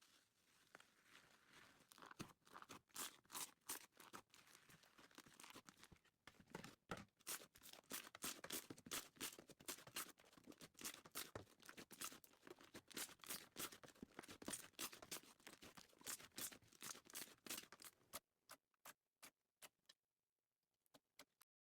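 Slime being worked, with a dense run of small, quiet clicks and pops that thins to a few scattered clicks near the end.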